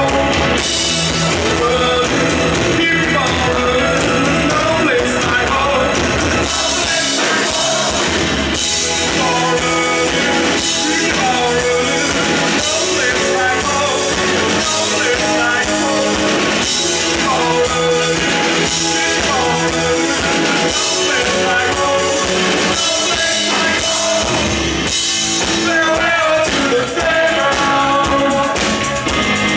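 Rock band playing live: electric guitar, bass guitar and drum kit with a male lead vocal, loud and steady, the low end dropping out briefly twice.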